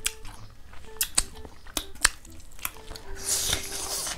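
Close-miked eating sounds: sharp, scattered clicks and crunches of chewing and of fingers working food on a metal plate, with a short hissy stretch about three seconds in.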